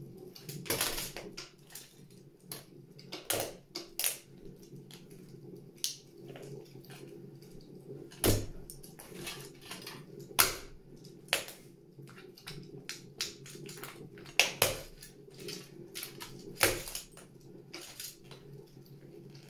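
Plastic toy train carriages and track cracking and crunching under stiletto heels: irregular sharp snaps and crunches, the loudest about eight, ten, fourteen and sixteen seconds in.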